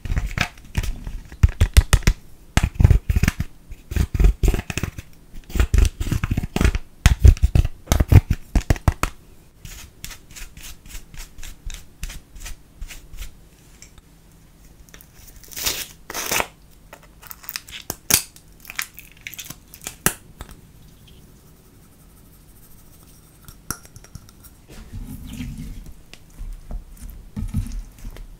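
Pressed makeup powder being crushed and scraped in its palette pan with a plastic tool: rapid scratchy scraping strokes, loudest and densest through the first nine seconds, then sparser, with one loud scrape about two thirds of the way through. Near the end, soft squishing as glitter slime is worked by hand.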